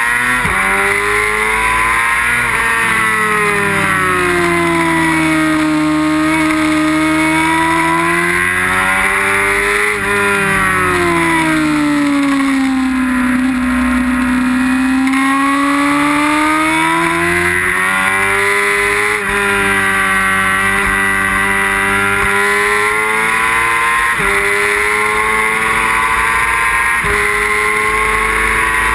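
Inline-four sport bike engine at race pace, heard onboard over a steady rush of wind: the revs fall away into a leaned corner near the middle and then climb again, with a sharp drop in pitch at each upshift, three times toward the end.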